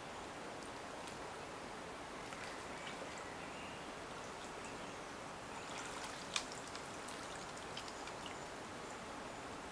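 River water flowing steadily, with a few short ticks in the second half, one sharper than the rest.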